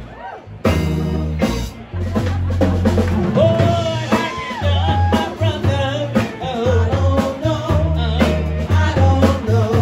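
Live band playing: women singing over a drum kit, electric guitar and a deep bass line.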